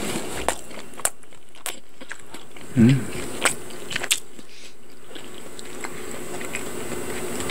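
Close-miked eating of fried croquette bread: a few crisp crunches and mouth clicks spread over the first five seconds, with a short low throat sound about three seconds in as the loudest moment. After that it is mostly quiet over a faint steady hum.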